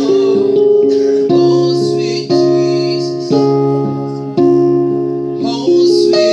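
Electric keyboard playing slow worship chords, each chord struck and held for about a second before the next.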